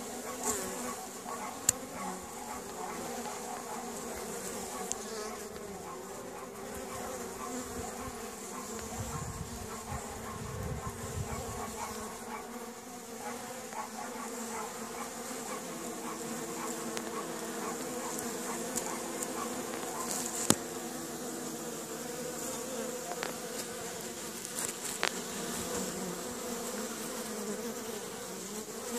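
Many honey bees buzzing around a hive entrance: a steady, wavering hum of overlapping wingbeats from bees flying in and out. A couple of brief sharp clicks stand out, one about two seconds in and one about two-thirds of the way through.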